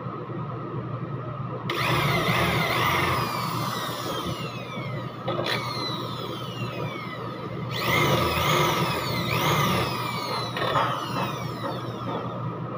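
Corded electric drill running in three bursts, starting about two, five and a half, and eight seconds in. Its whine falls in pitch again and again within each burst, over a steady hum.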